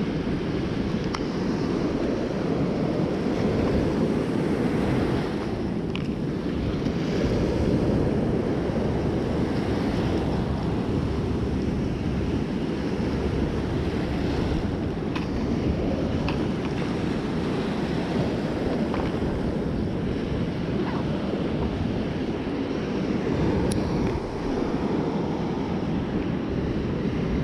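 Heavy surf breaking and washing up a sandy beach in a steady rush, mixed with wind buffeting the microphone.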